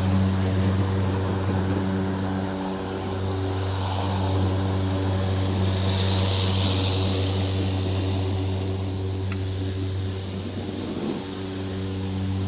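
Lawn mower engine running steadily at one pitch while cutting grass, with a hissing rush that swells and fades about halfway through.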